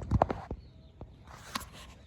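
Footsteps: a quick cluster of sharp scuffing knocks, then a softer rustle about a second and a half in.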